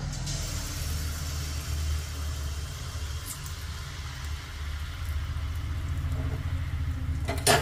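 Semolina malpua batter frying in hot refined oil in a kadhai: steady sizzling and bubbling that begins as the batter goes in, over a low steady hum. A sharp knock comes near the end.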